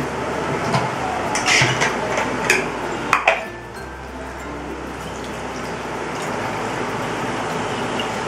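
A wooden dal masher knocks and scrapes against a metal pressure cooker pot of mashed moong dal, with several sharp clinks in the first few seconds. Then water pours from a plastic bottle into the dal in a steady splashing stream.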